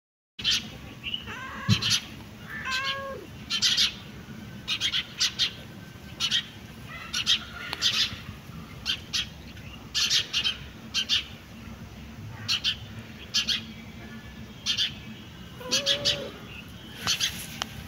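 Small birds chirping over and over in short, sharp high notes. A cat meows about three seconds in and again near the end.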